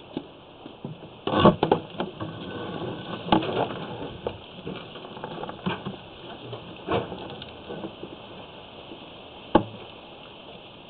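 Sewer inspection camera head and push cable being fed into a drain cleanout, knocking and scraping against the pipe walls. The knocks are irregular, with a loud cluster about a second and a half in and a single sharp knock near the end.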